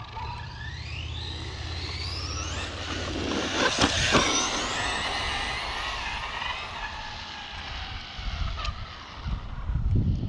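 Arrma Senton 6S RC truck's brushless motor and drivetrain whining on a full-throttle speed run. The pitch rises to a loud peak about four seconds in, then falls away as the truck slows and runs off. Wind buffets the microphone near the end.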